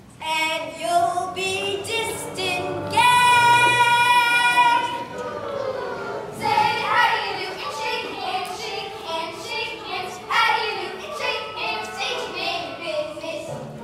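Children singing a song, with one long high note held for about two seconds, the loudest part, a few seconds in.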